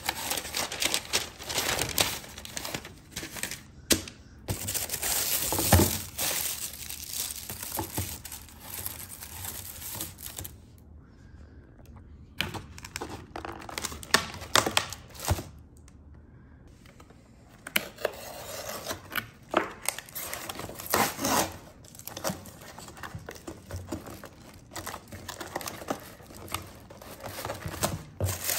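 Paper, cardboard and plastic packaging rustling and crinkling as a ring light is unpacked by hand, with occasional knocks of parts against the box. There is a quieter stretch about halfway through.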